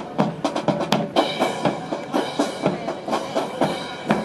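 Rifle drill squad marching and handling wooden-stocked rifles: a quick, uneven run of sharp clacks as hands slap the rifles and boots strike the ground in step.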